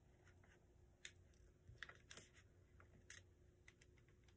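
Near silence, with a few faint ticks and rustles of a paper sheet being creased and pressed flat during folding.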